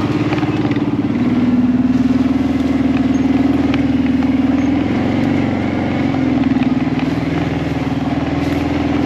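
Kawasaki Brute Force ATV engine running under way on a rough dirt road, its pitch dipping and rising a little with the throttle, with faint knocks and rattles from the ride.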